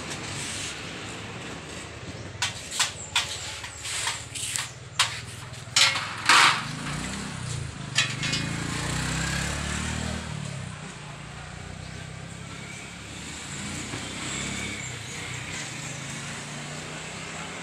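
Metal hand tools clinking and knocking, a run of about ten sharp clicks. Then the low hum of a passing motor vehicle's engine swells and fades, and comes back faintly near the end.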